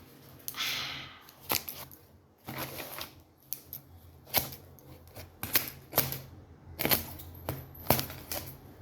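Parcel packaging being pulled and peeled off by hand: a short rustle, then irregular sharp crackles and clicks.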